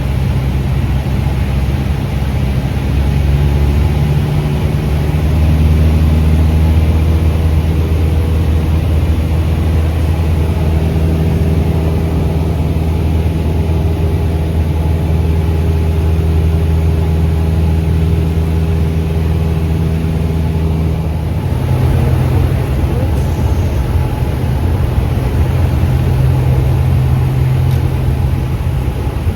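Cessna 172 Skyhawk's piston engine and propeller droning steadily. About two-thirds of the way through, the pitch of the drone shifts slightly.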